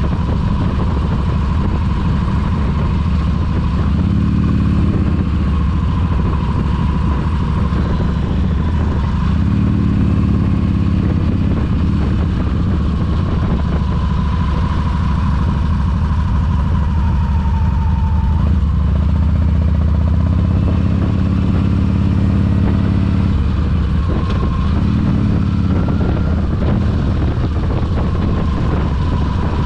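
Cruiser motorcycle's engine running steadily while being ridden along a road, its note swelling and easing several times with the throttle.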